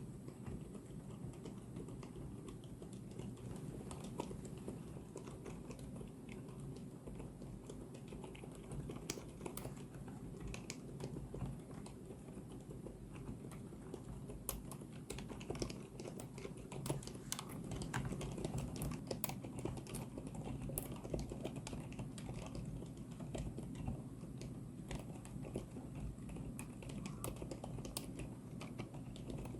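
Typing on an FL-Esports CMK75 mechanical keyboard with Outemu Lime silent tactile switches: a continuous stream of rapid keystrokes, with a few sharper clicks standing out in the second half.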